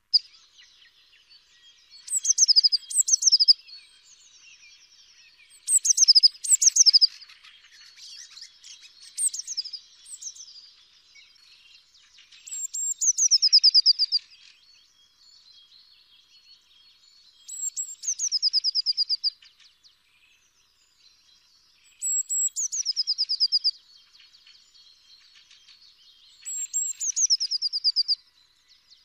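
Eurasian blue tit singing: about seven phrases spaced a few seconds apart, each a couple of high thin notes dropping into a fast descending trill, with faint chips between phrases.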